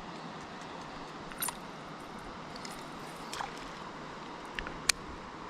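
About four sharp clicks and knocks of fishing gear being handled on a kayak, the loudest near the end, over a steady hiss.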